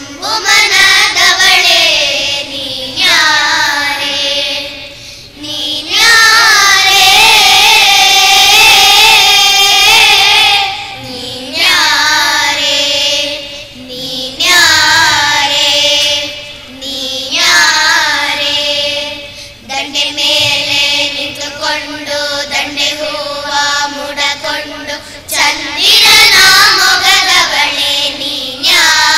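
A group of children singing together into stage microphones, in phrases of a few seconds with long held notes.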